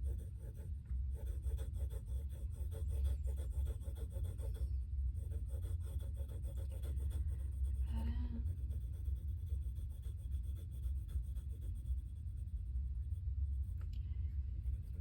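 Wooden pencil scribbling on sketchbook paper in quick back-and-forth strokes, filling in a solid area, over a steady low rumble.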